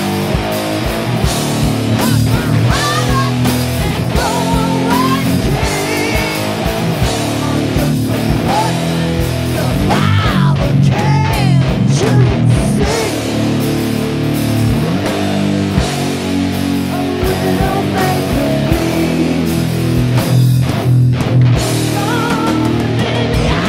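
Rock band recording: electric guitar and bass playing riffs over a steady drum beat.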